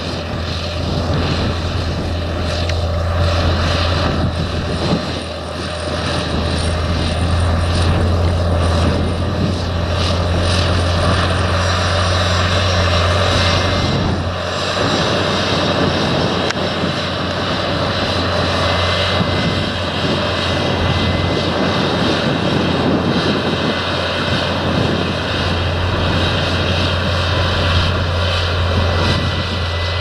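Fendt 936 Vario tractor's six-cylinder diesel engine running steadily with a deep drone, working under the load of a nine-furrow plough in the ground.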